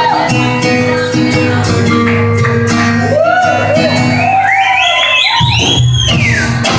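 Live band music at a concert, with steady held tones and a bass line. From about three seconds in, loud shouted whoops swoop up and down over the music.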